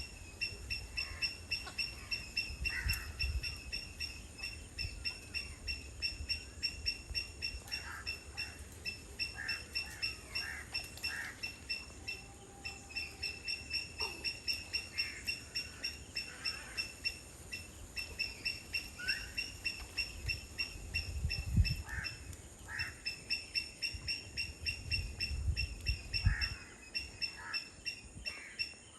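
Wetland birds calling: a high, pulsed note repeats about three times a second almost without a break, with scattered shorter calls over it. Low wind buffets on the microphone come near the start and again later.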